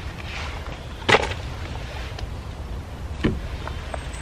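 Two sharp clicks from hands working camping gear, the first and louder about a second in and the second about two seconds later, with a few fainter ticks between, over a steady low background rumble.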